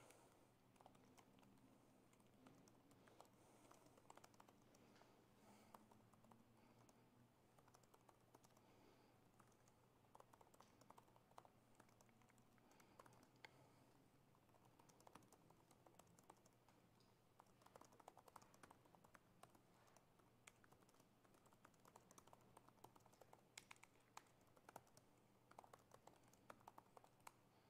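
Faint typing on a laptop keyboard: irregular key clicks in bursts, over a low steady hum.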